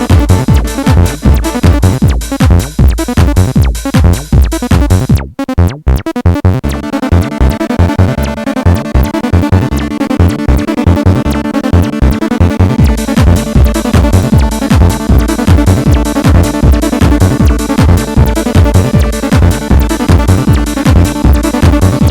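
Acid techno played live on hardware: a Maschine+ drum beat with a steady kick, under an acid bassline from a Behringer TD-3 and synth parts from a Korg Minilogue and Volca FM. About five seconds in the beat drops out briefly, then comes back with sustained synth chords.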